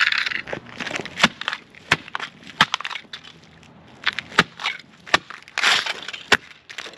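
Plastic body and parts of a toy RC car being cracked, snapped and crunched apart by hand: a run of irregular sharp snaps with two longer crunches, one at the start and one about two-thirds of the way through.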